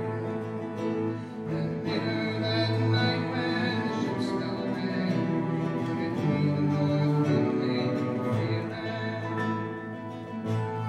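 Live acoustic ensemble music: acoustic guitar picking over cello and piano in a slow folk ballad accompaniment.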